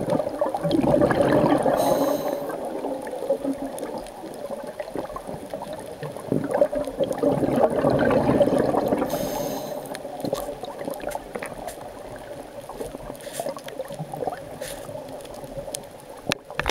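A scuba diver breathing through a regulator, heard underwater: two long bubbling exhalations, each followed by a short hiss of inhalation, then softer bubbling.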